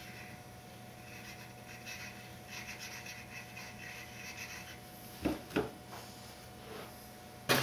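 Quiet workbench handling: soft rustling as glue is dabbed onto small plywood pieces, then two light knocks a little past five seconds in as the glue bottle is set down on the board, and another knock near the end, over a steady faint room hum.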